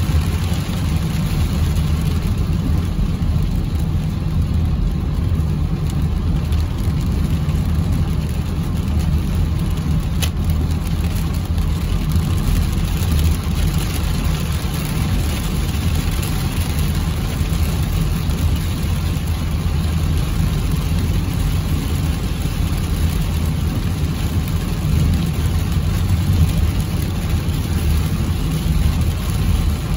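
Steady rumble inside a car's cabin while it drives on a rain-soaked freeway: tyre and road noise on the wet pavement, with rain on the windshield. A faint click about ten seconds in.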